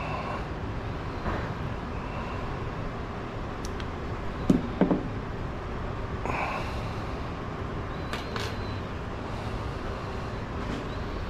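Coat-hanger wire hook working inside a chainsaw's fuel tank to fish out the fuel filter: a few light clicks, and two short knocks with a brief ring about halfway through, over a steady background hiss.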